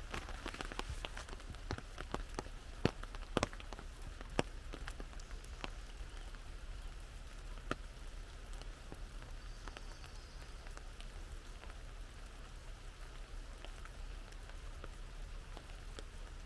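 Rain falling on an umbrella: a steady hiss with many sharp drop taps, thickest in the first few seconds, with a few louder single drops a few seconds in.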